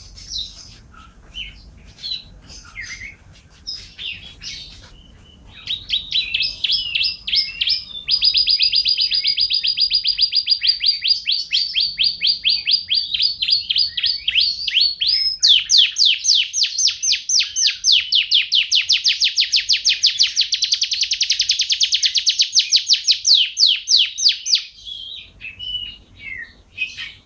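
Domestic canary singing: scattered chirps and short phrases, then two long, rapid trills of evenly repeated notes, together lasting most of the second half, before breaking back into short chirps near the end.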